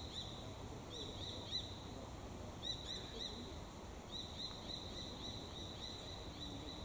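A small bird chirping: short high notes that rise and fall, in quick groups of two or three every second or so, over a faint low background rumble.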